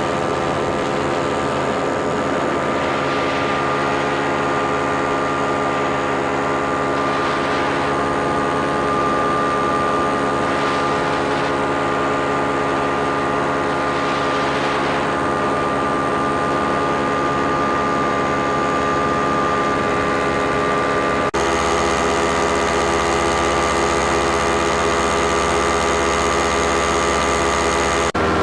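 Paramotor engine and propeller running steadily in flight, heard close up from the pilot's position, with a few brief rushes of wind noise in the first half.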